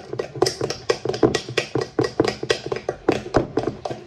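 A spoon beating cupcake batter by hand, knocking against the mixing bowl in a run of quick, uneven taps, several a second.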